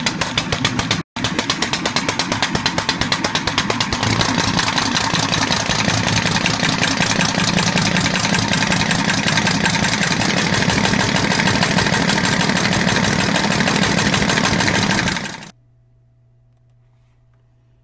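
Homemade compressed-air engine running on its old cam-and-pushrod valve train: a rapid, even chatter of exhaust puffs. About four seconds in it picks up speed until the puffs blur together, and near the end it cuts off suddenly, leaving a faint low hum.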